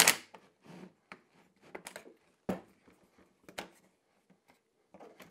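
Scattered short clicks and knocks of workshop handling: a cordless drill set down, metal toggle clamps flipped open and wooden pieces shifted on a plywood clamping jig. The loudest knock comes about two and a half seconds in.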